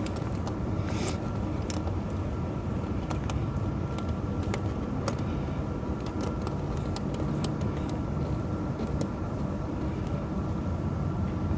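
Tractor engine idling steadily, with steel tire-chain links clinking in scattered sharp clicks as the chain is handled and fastened.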